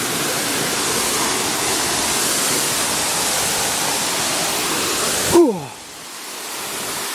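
Steady rushing roar of a waterfall close by. About five seconds in, a short falling vocal sound, then the roar drops suddenly and gradually rises again.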